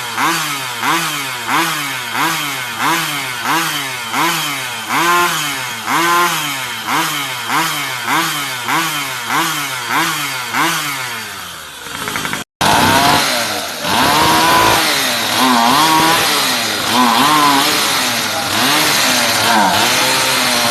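Small Mini GP bike engine revved through an aftermarket exhaust: quick even throttle blips, about one and a half a second, for the first half, then after a cut, longer and irregular revs.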